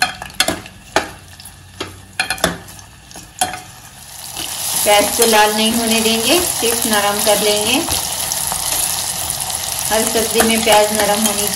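Chopped onions frying in oil in an aluminium pressure cooker, stirred with a steel spoon. For the first few seconds the spoon clicks and knocks against the pot; about four seconds in, a loud sizzle rises and stays as the onions are turned to soften them. A pitched, wavering tone comes in twice behind the sizzle.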